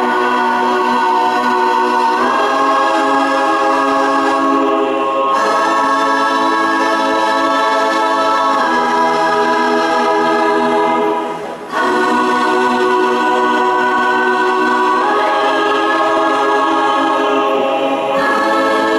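Choir singing long held chords that change about every three seconds, with a short break about eleven seconds in.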